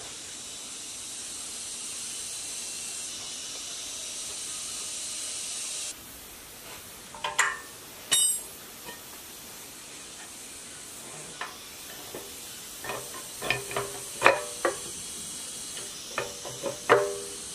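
A steady high hiss that stops abruptly after about six seconds. Then scattered sharp metallic clinks and taps with a short ring, as steel tools and parts knock against a ZS1115 single-cylinder diesel engine during reassembly, most of them in the last few seconds.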